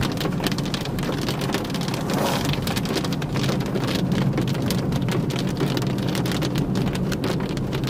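Heavy rain with large drops hitting the roof and windshield of a moving car, heard from inside the cabin: a dense crackle of drop strikes over steady road noise.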